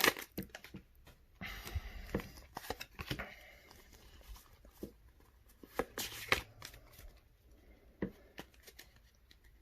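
Pokémon trading card packs and cards being handled: a short crinkle of a foil booster pack wrapper about a second and a half in, then scattered soft clicks and taps of cards.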